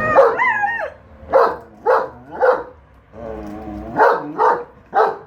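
A German shepherd and a Siberian husky vocalizing: a drawn-out, wavering yowling call, then six short, sharp barks in two quick groups of three.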